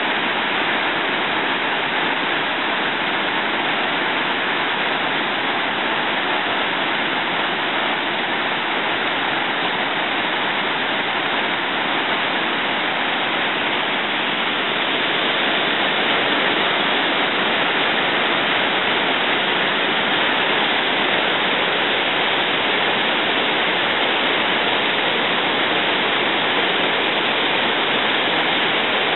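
Steady, loud rush of whitewater from Phi Alpha Falls, a long cascade of waterfalls.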